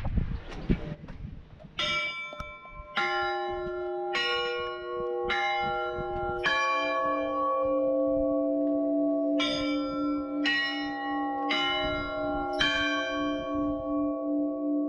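Russian Orthodox belfry bells rung by hand from ropes, ringing the call to the all-night vigil. The strokes come about one a second, each left to ring on, with a deeper bell joining partway through. A brief gust of wind on the microphone comes before the first stroke.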